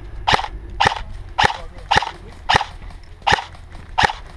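Airsoft rifle firing single shots in a steady run, about two a second, seven shots in all, each a sharp crack.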